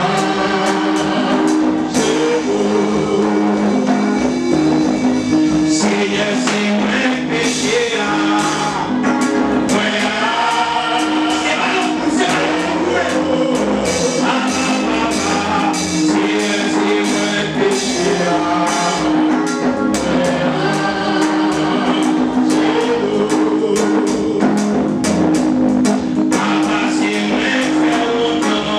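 Live gospel worship song: a man singing into a microphone over band accompaniment with hand drums, probably joined by other voices, with a steady beat of drum strokes throughout.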